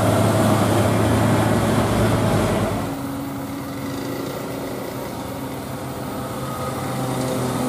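Heavy diesel trucks pulling uphill on a wet road, with loud road noise; about three seconds in this gives way to the quieter, steady drone of a Hino 500 truck's diesel engine climbing in fourth gear.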